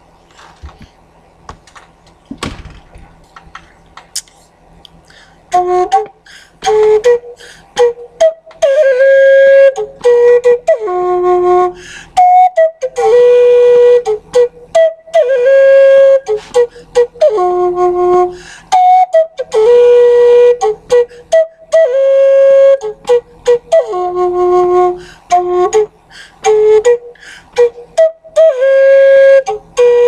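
Music: a woodwind melody of held notes over a sharp clicking beat, coming in about five seconds in after a few faint clicks.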